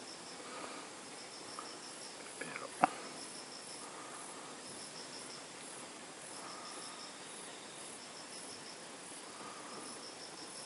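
Insects chirping in repeated high-pitched pulsed trills that run steadily in the background. A few small ticks and then one sharp click come about three seconds in.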